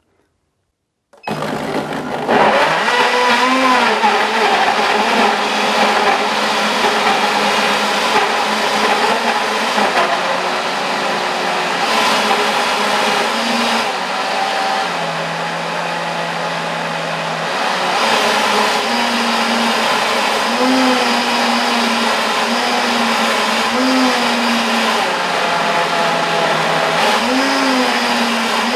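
Semak VitaCrush 1500-watt commercial power blender starting about a second in and running hard through a jug packed with raw pumpkin chunks and a little water, churning them to smooth puree. Its pitch wavers and shifts several times as the automatic 45-second program changes speed by itself.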